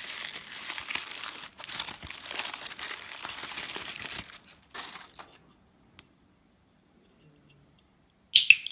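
Plastic packaging crinkling and rustling as it is handled for about four seconds, then quiet. Near the end comes one sharp click-clack, the snap of an Acme cricket clicker.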